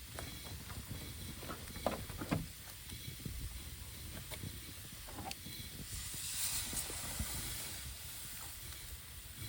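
Campfire cooking: a pan over the fire hissing steadily, with a few sharp knocks about two seconds in and the hiss swelling about six seconds in.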